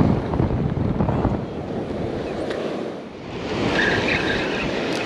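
Wind buffeting the microphone over the steady wash of ocean surf, with a brighter hiss building from about three seconds in.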